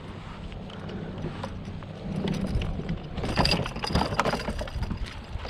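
Irregular clicks, knocks and rattles as a landed fish is handled and put into the fish box on a boat, busiest about three seconds in, over a low steady hum.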